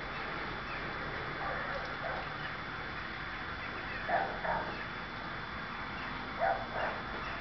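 A dog barking in the distance, two quick barks about four seconds in and two more about two seconds later, over steady outdoor background noise.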